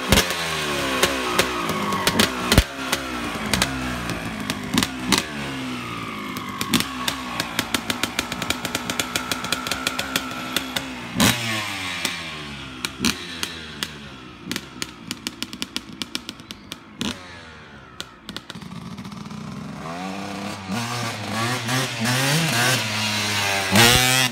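Suzuki RM250 two-stroke engine with an FMF Gold Series expansion pipe and FMF Shorty silencer, revving up and down with many sharp pops and crackles between the revs. The revs climb again near the end.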